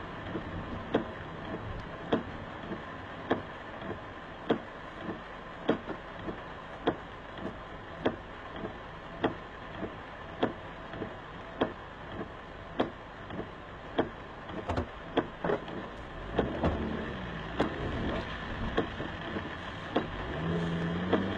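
Car windshield wipers sweeping on a rain-covered windshield, with a sharp knock nearly twice a second as the blade changes direction, over steady in-cabin road and rain noise. The low rumble grows louder over the last few seconds, and a rising engine tone comes in near the end.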